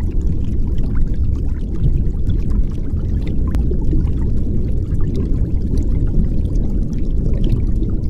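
Pouring, rushing water sound effect, a steady deep rush with faint scattered small bubbly ticks above it.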